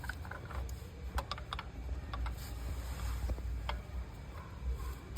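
Light irregular clicks and taps of a metal brake pad and its shim being handled and fitted against a motorcycle's rear brake caliper, over a low steady rumble.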